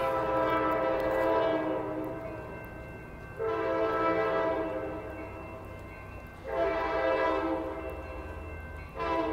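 Air horn of an Amtrak San Joaquin F59PHI diesel locomotive on an approaching train, sounding four blasts about three seconds apart; the last one begins near the end. A steady low rumble runs underneath.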